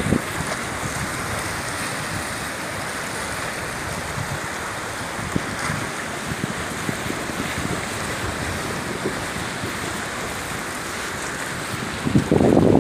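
Steady wash of sea surf on a rocky shore, with wind buffeting the microphone; the low rumble swells louder near the end.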